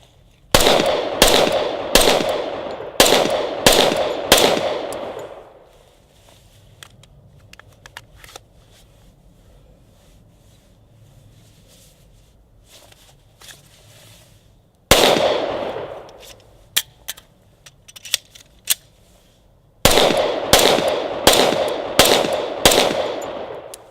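Glock 21 .45 ACP pistol firing in strings: about six quick shots with echoing tails, a lone shot midway followed by a few short sharp clicks, then another string of about six shots near the end.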